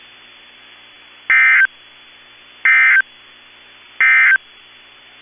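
Three short bursts of EAS digital SAME data from a NOAA Weather Radio broadcast, each about a third of a second long and a little over a second apart, over faint steady radio hiss. This is the end-of-message code that closes the severe thunderstorm warning.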